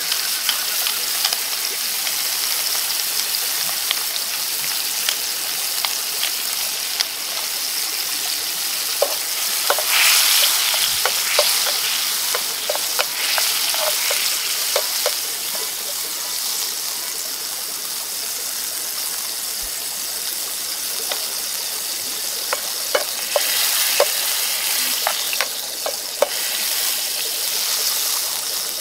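Shallot, garlic and black-pepper pan sauce sizzling in a hot cast-iron skillet: a steady hiss with scattered pops and crackles, swelling louder about ten seconds in.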